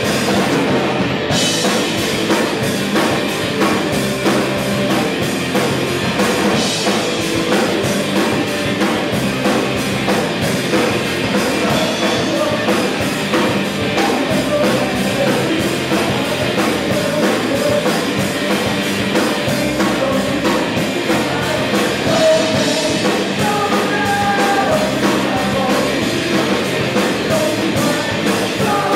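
A rock band playing live: electric guitars, bass guitar and a drum kit at a steady beat.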